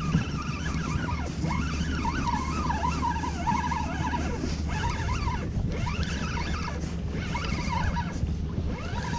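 A steady low rumble of wind and lapping water on the boat. Over it comes a string of faint, wavering squeals that rise and fall in pitch again and again.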